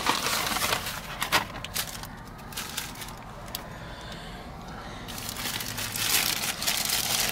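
Paper crinkling and rustling as a paper food bag is handled and a burger's paper wrapper is unwrapped, with a quieter spell in the middle.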